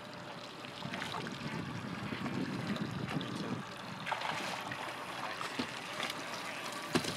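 Seawater splashing and sloshing at the side of a small boat as a hooked California yellowtail thrashes at the surface, with a sharp knock near the end.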